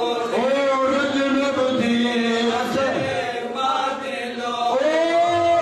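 Men's voices chanting a slow Shia mourning lament (noha) together, drawing out long, gliding notes. There is a short break just past four seconds before a new held note begins.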